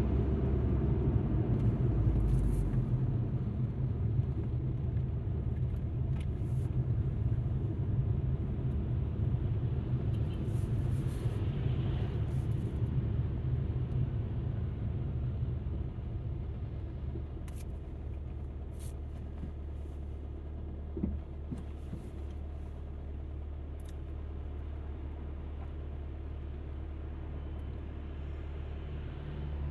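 Low, steady rumble of an Alfa Romeo MiTo being driven, heard from inside the cabin, with a few faint clicks. The rumble drops to a quieter, even level about halfway through.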